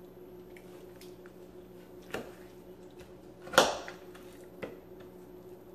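A knife working through a whole rotisserie chicken on a plate: a few soft clicks and scrapes, with one louder sharp sound about three and a half seconds in.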